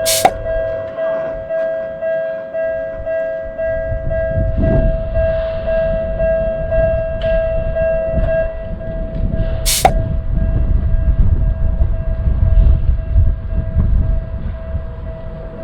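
Japanese railroad crossing alarm bell ringing in a steady repeating rhythm, with the low rumble of a train passing over the crossing building from about four seconds in. Two sharp clicks, one at the very start and one about ten seconds in.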